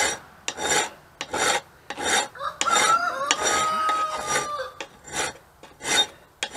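Hand file rasping across the steel of a knife blank held in a bench vise, in even strokes, about three every two seconds, cutting a choil into the still-unhardened blade.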